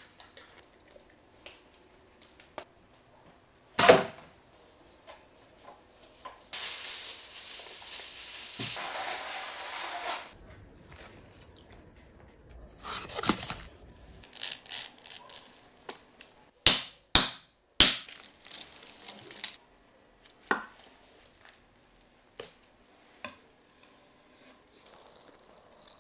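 A run of cooking sounds from a large turkey being fried and carved: a single heavy knock about four seconds in, a loud hissing sizzle for about three and a half seconds, then knife and utensil noises with three sharp clicks in quick succession and scattered light knocks.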